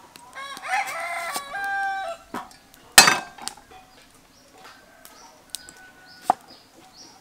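A rooster crows once, a long call of about two seconds that steps in pitch and ends on a held note. A cleaver chops sharply onto a wooden chopping block about three seconds in, the loudest sound, with a lighter chop near the end.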